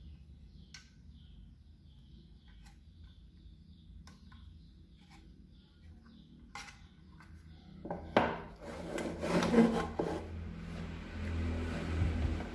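Control knobs being pressed onto an amplifier box's potentiometer shafts, giving faint scattered clicks, then from about eight seconds in a few seconds of louder rubbing and scraping as the box is handled and set down on a wooden desk.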